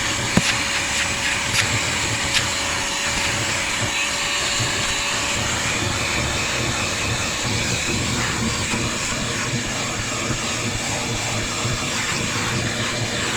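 Hyper Tough vacuum cleaner running steadily while sucking up car carpet, with a few sharp knocks in the first few seconds.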